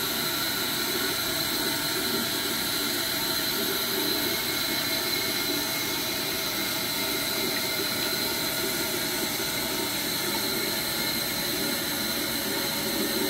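Toilet tank refilling after a flush: the fill valve runs with a steady hiss of water and a thin high whistle.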